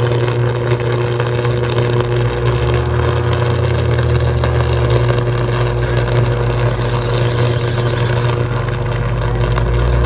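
Power line arcing at the top of a storm-damaged utility pole: a steady low electrical buzz with constant crackling.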